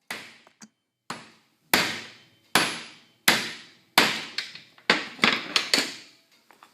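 Hammer striking the top of a Toyota Land Cruiser tail shaft's universal joint, about ten sharp metal-on-metal blows with short ringing, coming faster near the end, driving the bearing cup out through the yoke.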